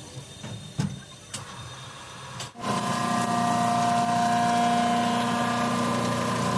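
A couple of light clicks, then a workshop machine's motor switches on about two and a half seconds in and runs steadily with a constant whine.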